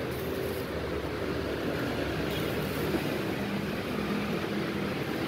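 Steady rumble of road traffic with a faint low hum, with no distinct events.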